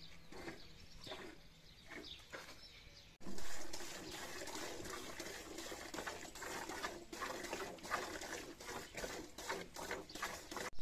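Hand milking: streams of cow's milk squirting into a metal pail in a quick steady rhythm, starting about three seconds in.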